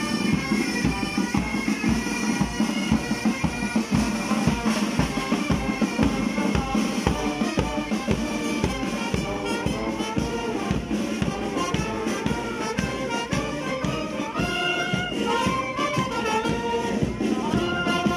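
Uniformed marching band playing a march as it goes past: saxophones, clarinets, sousaphones and other brass over a steady drumbeat. In the last few seconds the melody's held notes stand out more clearly.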